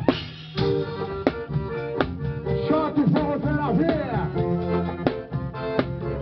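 Forró music with accordion.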